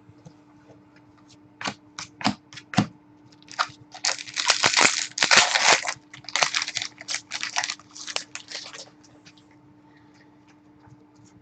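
Trading-card packs and wrappers being handled: a few sharp clicks, then several seconds of crinkling and crackling, typical of a foil card-pack wrapper being torn open and crumpled.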